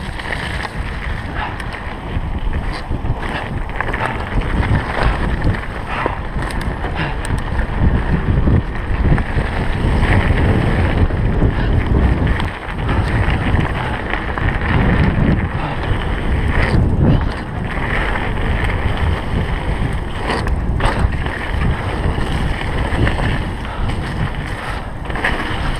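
Mountain bike ridden fast along a rough, wet woodland dirt trail: wind buffets the handlebar camera's microphone over steady tyre noise, with scattered knocks and clatter as the bike jolts over roots and stones.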